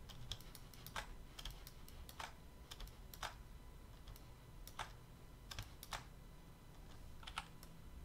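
Faint, irregular clicks of computer keyboard keys pressed one at a time as modelling shortcuts are entered, about ten over several seconds.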